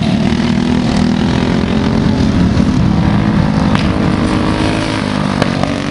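Several small go-kart engines running in a steady, continuous drone as the karts circle at reduced pace under caution.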